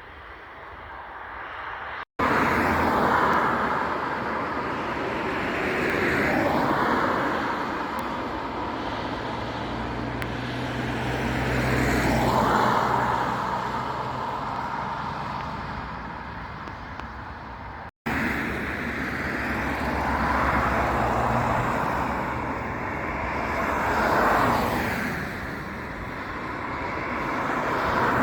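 Jet airliner engines running loudly, a roar with slowly sweeping rising and falling tones, cut off and restarted twice by abrupt edits.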